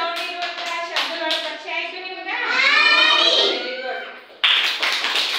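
Children's voices chanting together with steady hand claps. About four and a half seconds in, a loud burst of many hands clapping at once.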